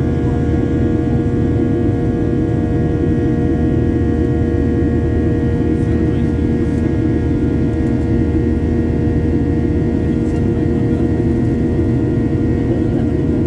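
Steady noise inside a jet airliner's cabin: the engines and air system run at an even level, with several steady whining tones over the rush.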